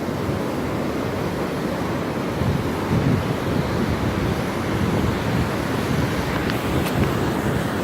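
Storm surf from an approaching hurricane crashing on the beach, a steady rushing roar of breaking waves, with wind buffeting the microphone.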